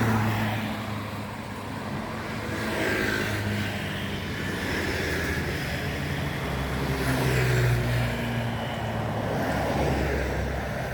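Motor vehicle traffic: engines running and passing, a steady low hum that swells and fades.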